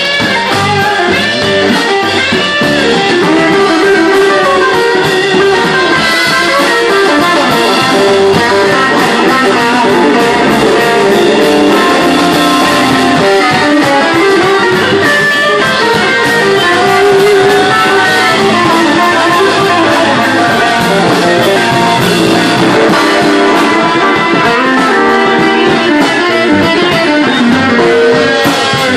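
Live blues band playing loudly and steadily, with electric guitars out front over a drum kit.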